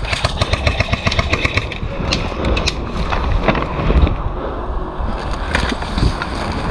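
Airsoft guns firing in quick strings of sharp clicks, densest in the first few seconds, over a steady low rumble of wind and movement on the camera microphone.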